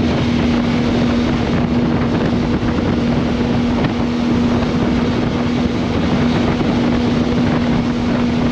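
Benelli TRK 502X motorcycle cruising at a steady speed: wind rushing over the helmet microphone, with a steady, unchanging hum underneath.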